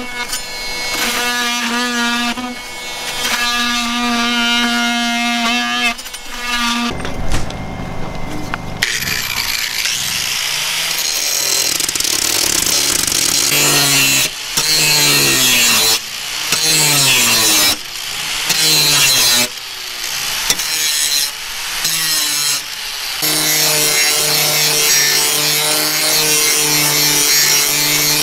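Handheld electric power tool with a metal-cutting disc trimming the sheet-metal roof edge of a vent opening. Its motor whine pauses briefly about seven seconds in, then comes in short passes whose pitch sags as the disc bites and recovers between them. It runs steadily again near the end.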